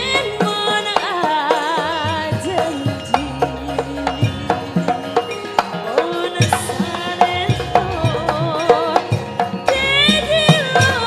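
A female sinden sings a Javanese song with wavering vibrato over live gamelan accompaniment, with sharp kendang hand-drum strokes keeping the rhythm.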